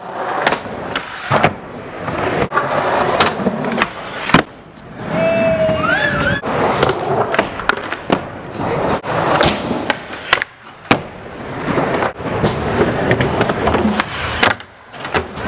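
Skateboard wheels rolling on a concrete skatepark floor, broken by many sharp clacks as the tail pops and the board lands. The trucks grind along a metal-edged ledge.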